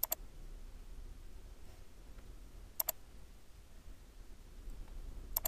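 Computer mouse button clicked three times, each a quick press and release, about two and a half seconds apart, over a faint low hum.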